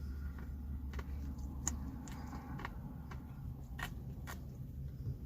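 A person eating a Heath Blizzard ice cream: about half a dozen scattered light clicks and taps of the cup and spoon, and the eating itself, over a steady low hum inside a car.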